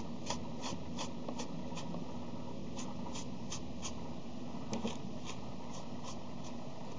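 Light, quick dabs of a paint-loaded kitchen sponge cube against a craft-foam (EVA foam) petal, about three soft taps a second, pausing and resuming in short runs.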